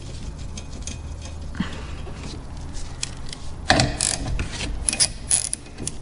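Ratchet wrench clicking in quick runs as it turns a 15 mm nut, with louder runs of clicks about two thirds of the way through and again near the end.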